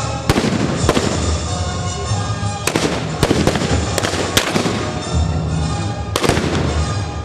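Gunshots, about eight sharp cracks at irregular intervals, from a battle reenactment, heard over background orchestral music.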